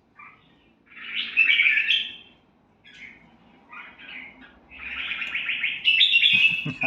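Red-whiskered bulbul singing: a short call, a loud warbled phrase about a second in, a few short notes, then a longer run of rapid notes near the end.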